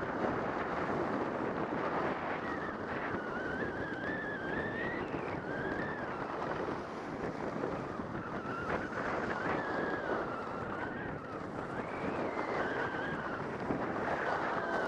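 Wind rushing over the microphone and the hiss of a Trikke ski-trike's runners carving over groomed snow on a downhill run. A wavering high whistle comes and goes over it.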